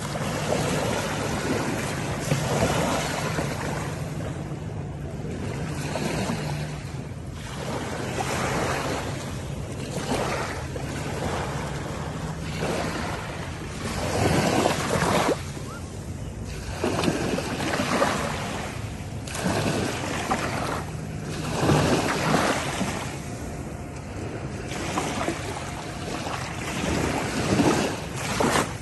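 Ocean waves washing in and breaking, surging and easing every few seconds. A low steady hum runs under the surf through roughly the first half.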